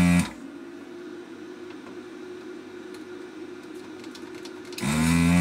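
Vacuum desoldering station's pump running with a loud steady hum, sucking molten solder out of a capacitor's joints on a multi-layer circuit board. It cuts off just after the start, leaving a faint steady hum, and switches on again near the end, its pitch rising briefly as it spins up.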